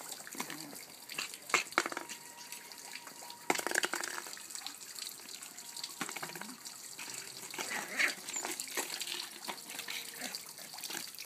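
Westie puppy playing with a flower pot: irregular scraping and rustling with sharp knocks, the loudest about one and a half and three and a half seconds in.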